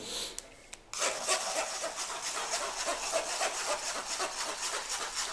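A hand rubbing blended mango pulp through a wire-mesh strainer, a rapid, steady scraping against the mesh that starts about a second in. The pulp is being pressed through the sieve to hold back the mango's fibres.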